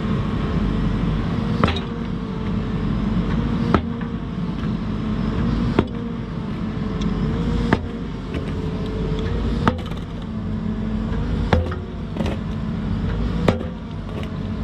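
Volvo excavator engine running steadily while a large concrete block, used as a pile-driving weight, strikes a steel dock pile about every two seconds. There are seven sharp bangs as the pile is driven down.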